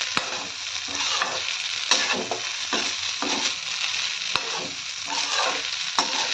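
Fried rice sizzling in a metal wok while a spatula stirs and scrapes through it, with a few sharp clicks of the spatula knocking the pan.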